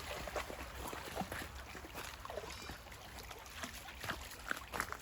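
Light, irregular splashing and squelching of a Siberian husky's paws moving through mud and shallow water.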